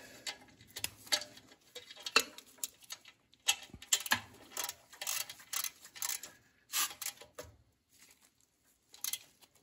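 Socket ratchet clicking in quick runs of sharp ticks with short pauses between, as mounting bolts are cranked tight.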